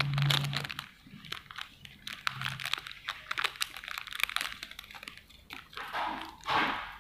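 Thin clear plastic lure packet crinkling and rustling as hands pull it open and slide a mini popper lure out, with a louder rustle about six and a half seconds in.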